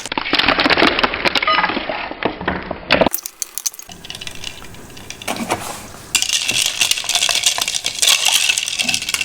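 Ice cubes from a tray clattering and clinking into a glass, in several bursts of rapid clicks.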